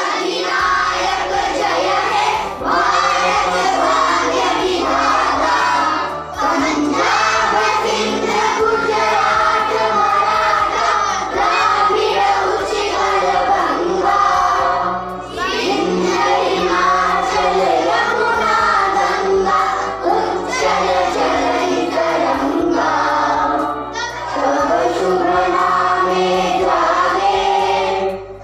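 A group of children singing a song together, over an accompaniment that holds long low notes, with short breaks between phrases.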